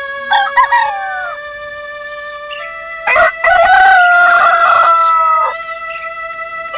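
Rooster crowing: a short crow with a falling pitch about half a second in, then one long crow starting about three seconds in, the loudest sound, held for over two seconds. Steady held music tones run underneath.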